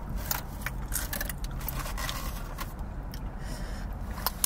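Scattered crinkles and clicks of food and wrappers being handled while eating, over the steady low rumble of a car's interior.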